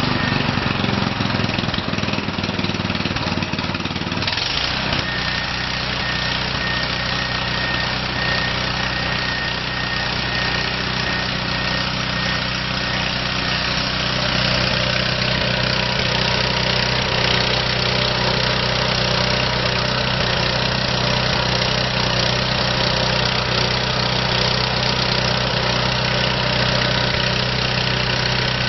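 Honda GX340 single-cylinder gasoline engine of a Multiquip GA6HB 6 kW portable generator running. Its sound changes abruptly about four seconds in, then it runs at a steady, even speed.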